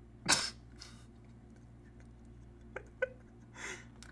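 A man's short breathy laughs and exhales, with two small sharp clicks about three seconds in.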